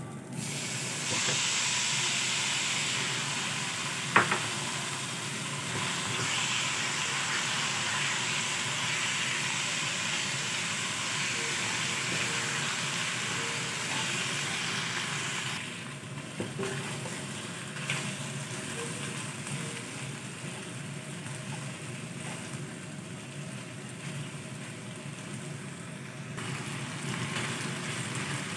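Marinated chicken pieces sizzling as they fry with shallots in a hot wok, stirred with a plastic spatula. The sizzle starts about a second in and is loudest for the first half, with one sharp clink about four seconds in; then it settles to a quieter fry and swells again near the end.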